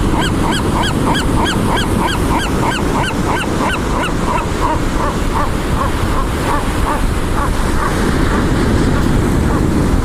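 A gull calling in a long run of short, repeated cries, about three a second, slowing and fading out about two-thirds of the way through. A steady low rumble runs underneath.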